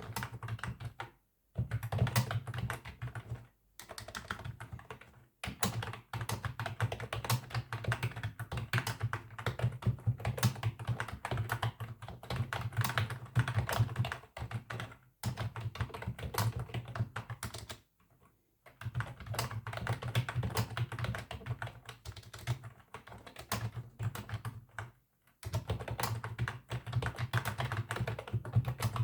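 Typing on a computer keyboard: dense, irregular key clicks that stop dead for a moment several times.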